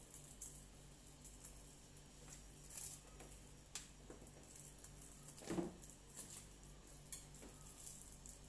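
Faint eating sounds: fingers pulling roast chicken apart and chewing, with scattered soft clicks and a brief louder sound about five and a half seconds in, over a low steady hum.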